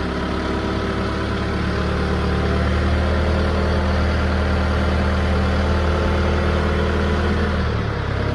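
Branson F Series compact tractor's diesel engine running steadily, then shutting off right at the end.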